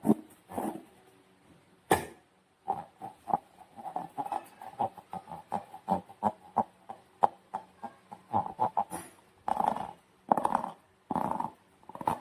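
Hands working slime and rubber balloons: a sharp click about two seconds in, then a quick run of short squishy squeaks, several a second, and a few longer squelches near the end.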